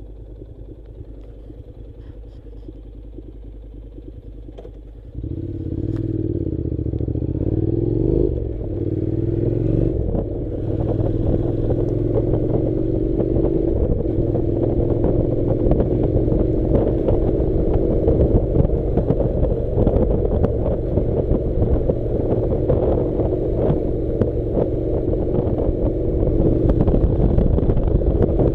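Honda NC700 parallel-twin motorcycle engine running quietly at first, then about five seconds in pulling away loudly, its pitch rising and dropping twice as it shifts up. It then runs steadily, with clatter and knocks from the rough track.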